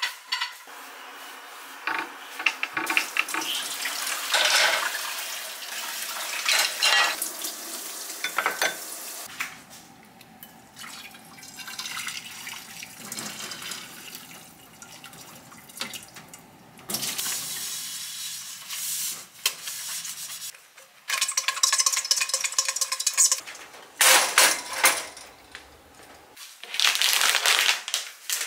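Washing up at a kitchen sink: plates and pans clattering, and water running and pouring, including hot water poured from an electric kettle over a frying pan. Near the end there is a quick run of sharp knocks and rattles.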